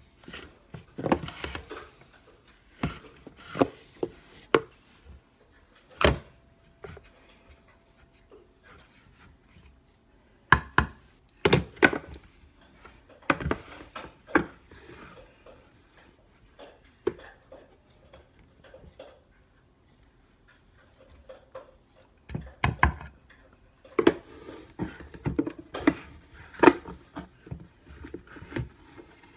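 A plastic measuring cup scooping oat flour and tapping against a wooden mixing bowl: scattered knocks and clatters, with quiet stretches between.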